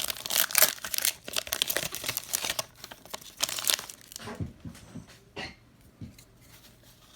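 Plastic trading-card pack wrapper crinkling and tearing as it is ripped open, busy for about the first four seconds, then a few soft knocks and quieter handling of the cards.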